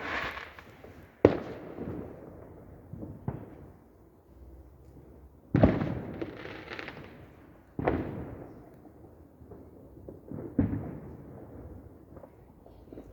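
Fireworks going off outdoors: about five sharp bangs a couple of seconds apart, each trailing away in a fading echo.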